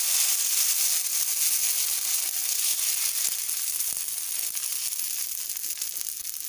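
Rice-and-urad-dal batter sizzling on a hot oiled tawa pan just after being ladled on and spread thin: a steady high hiss that slowly fades.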